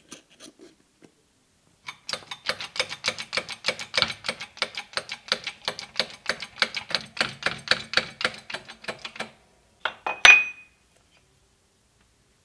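Rapid, even taps at about five a second on a wooden block, driving a steel ball bearing down onto the shaft of a drill chuck held in a steel angle-iron jig. Near the end comes one loud metallic clank with a short ringing tone.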